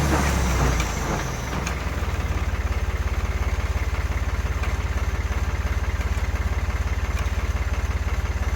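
A tractor engine powering a PTO stump grinder drops from a higher speed in the first second and a half and settles into a steady, pulsing idle.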